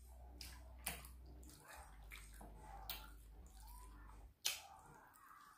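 Faint, wet eating sounds of chewing sauced pork neck bones and picking the meat off with the fingers, with a few sharp smacks, the loudest about four and a half seconds in.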